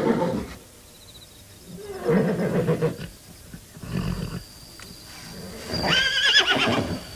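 A horse whinnying, the loudest a high, wavering whinny about six seconds in, with quieter sounds before it.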